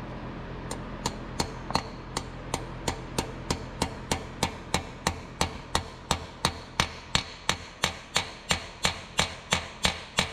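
Hammer tapping steel block-off plugs into the oil passages in the lifter valley of a GM 5.3L LT V8, at a steady rate of about three light metal-on-metal strikes a second, starting about a second in. This is part of a cylinder-deactivation (DOD) delete: the plugs shut off oil pressure to the deactivation solenoids.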